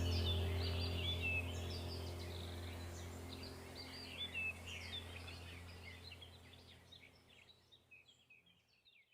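Birds chirping and twittering over a low steady hum, the whole fading out gradually until it is gone near the end.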